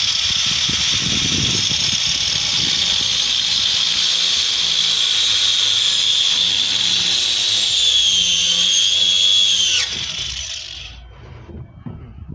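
Electric power tool running at high speed with a loud, high-pitched whine. Its pitch sags a little under load in the later seconds, then it is switched off about ten seconds in and spins down.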